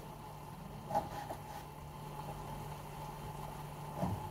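A kitchen knife dicing eggplant on a plastic cutting board: a few soft knocks about a second in and again near the end, over a steady low hum.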